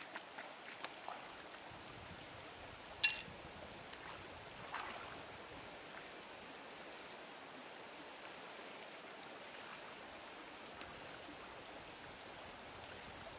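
Shallow stream running over rocks, a steady water noise, with a few splashes and knocks in the first five seconds as someone wades in; the loudest is a sharp one about three seconds in.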